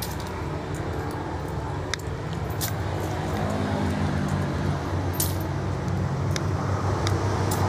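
A motor vehicle engine running with a steady low hum that slowly grows louder, under a few light clicks and jangles from small objects being handled and packed.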